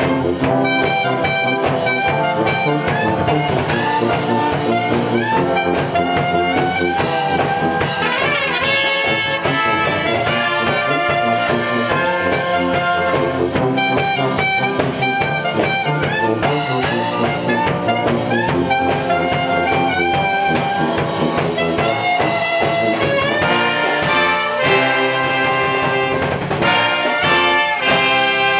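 Brass band of trumpets, trombones, alto saxophone and sousaphone playing a pop-song arrangement together, settling into long held chords near the end.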